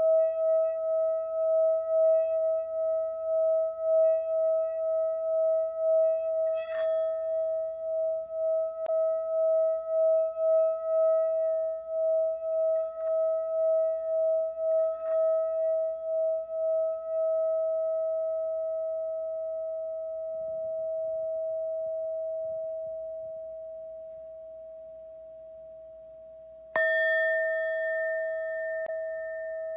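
Singing bowl ringing with a steady, wavering tone that pulses about twice a second and slowly fades. Near the end it is struck again and sounds a sudden, brighter ring.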